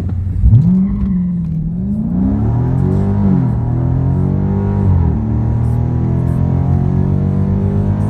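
Dodge Charger Scat Pack's 392 Hemi V8 with its mufflers deleted, launched hard down a drag strip and heard from inside the cabin. The revs jump about half a second in, then climb and drop back at each of several upshifts before holding a steady note from about five seconds in.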